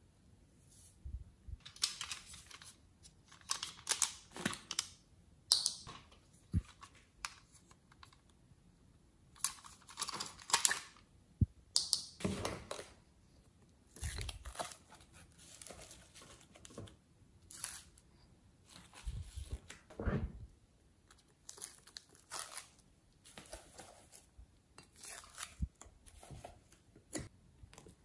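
Hands handling slime and plastic moulds: irregular sticky crackling and crinkling sounds in short bursts every second or two, with a few soft thuds.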